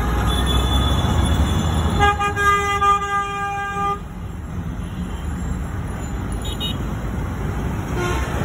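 Vehicle horn sounding one steady note for about two seconds, starting about two seconds in, over a continuous rumble of road traffic and engines.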